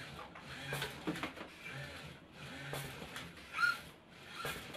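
Industrial robot arm of a waste-sorting robot moving, its motors whirring in short spurts that start and stop about once a second, with scattered clicks and a brief rising whine near the end.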